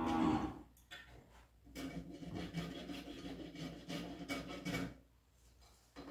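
A farrier's rasp filing a horse's hoof: a run of irregular rubbing strokes from about two seconds in until about five seconds. At the very start, a held pitched tone fades out.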